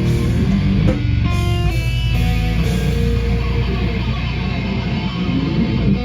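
Live heavy rock band playing electric guitar, bass and drums; after the last drum strikes about a second in, a low chord is held and left ringing.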